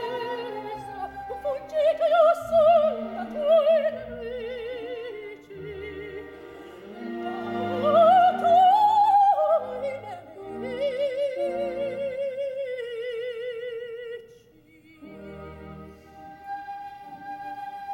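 Operatic soprano singing with wide vibrato and rising and falling phrases, an orchestra accompanying beneath. The voice drops out about fourteen seconds in, leaving a quieter held instrumental line.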